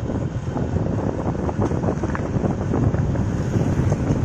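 Wind blowing across the microphone over the steady road and engine noise of a vehicle driving along the road.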